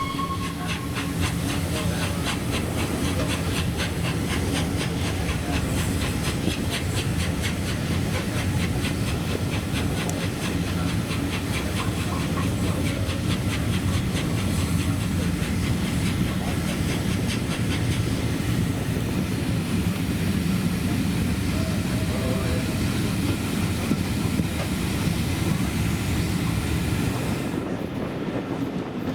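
Steam-hauled train on the move behind LNER Peppercorn A1 4-6-2 no. 60163 Tornado: a steady hiss of steam and running noise, with a rapid, even beat through roughly the first half.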